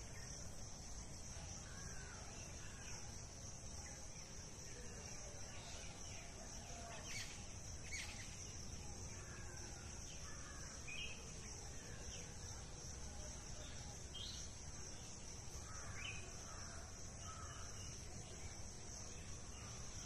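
Outdoor garden ambience: a steady high-pitched insect drone with scattered faint bird chirps and a low background rumble.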